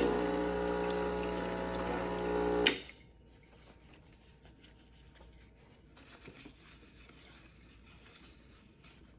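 Gaggia Classic Evo Pro espresso machine's vibratory pump buzzing under a steady hiss of water. It starts with a click and is cut off with a click after nearly three seconds.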